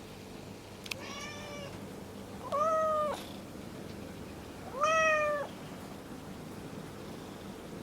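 A cat meowing three times, each call under a second long, rising slightly in pitch and then sliding down. A short sharp click comes just before the first meow.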